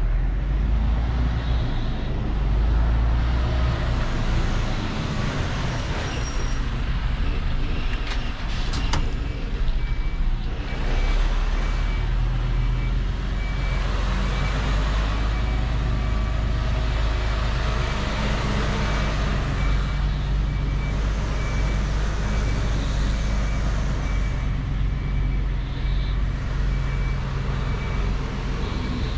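Semi-truck tractor unit's engine running with a steady low rumble; about a third of the way in, a reversing beeper starts sounding repeated high beeps, the sign that the truck is backing up.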